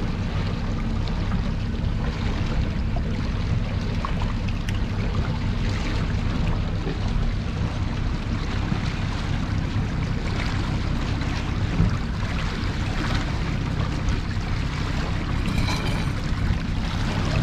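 A boat's engine running at slow trolling speed, a steady low drone, under the rush of the wake and water along the hull, with wind on the microphone.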